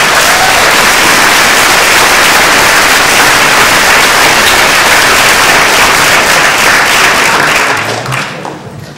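Loud audience applause, dense and steady, dying away near the end.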